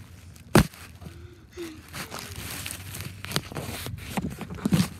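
Rustling and crinkling handling noise with scattered knocks, the loudest a single sharp knock about half a second in.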